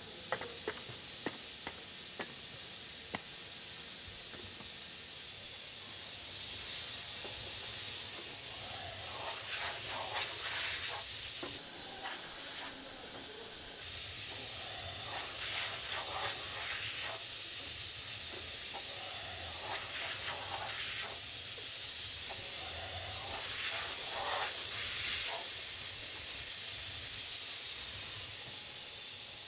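A steady high hiss runs through the workshop. It thins briefly about five seconds in and falls away near the end. Over it come light clinks and scrapes of unfired earthenware pots being handled and stacked.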